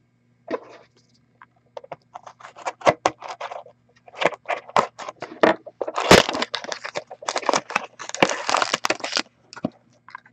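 Cellophane shrink wrap crackling and tearing as it is stripped off a sealed trading-card box, then the cardboard box opened and a foil-wrapped pack pulled out: an uneven run of crackles, scrapes and rustles, loudest about six seconds in and densest in the following few seconds.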